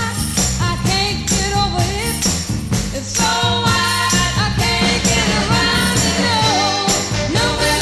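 Background music: a song with a melody over a steady beat.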